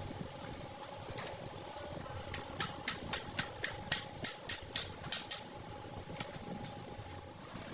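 A steady machine hum in a workshop, with a run of about a dozen sharp taps, roughly four a second, in the middle.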